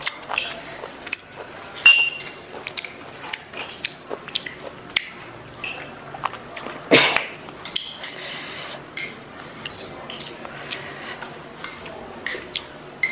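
Metal spoons clinking and scraping against small ceramic bowls during eating, in scattered light clicks, with one louder clatter about seven seconds in.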